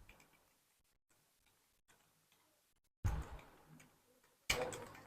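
Computer keyboard keys clicking faintly and irregularly during fast typing, with two louder knocks about three and four and a half seconds in.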